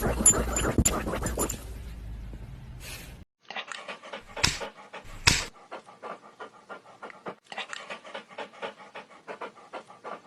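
Dog panting quickly and rhythmically, several breaths a second, with a couple of sharper clicks a little after it begins. Before it, in the first second and a half, a louder noisy stretch that cuts off.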